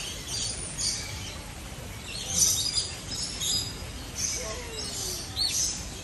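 Small birds chirping in a bird-park aviary: a run of short, high chirps that is busiest and loudest a little over two seconds in, with a fainter, lower falling call about two-thirds of the way through.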